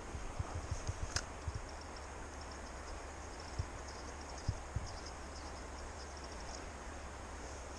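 Steady rushing of a high, rain-swollen river, with a few low knocks of handling near the microphone, one sharp click about a second in, and faint high chirping in the middle.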